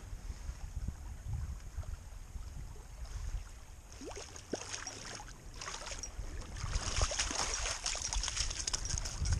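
Lake water lapping at a gravel shore. About four seconds in, a hooked trout starts splashing as it is drawn through the shallows and slid onto the wet gravel, and the splashing grows louder and busier toward the end.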